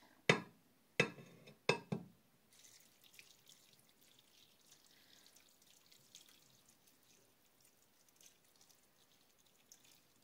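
Three sharp knocks of kitchenware, about two-thirds of a second apart, then faint scattered ticks of liquid dripping after the aspic stock has been poured.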